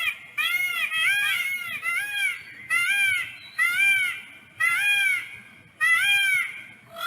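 Peacock calling: a run of about a dozen short, loud, nasal calls that rise and fall in pitch, mostly in pairs.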